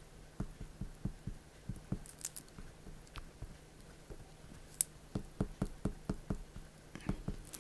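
An oil pastel crayon dabbed and stroked on paper in short strokes: a string of light, irregular taps and scratchy clicks, with a couple of sharper clicks.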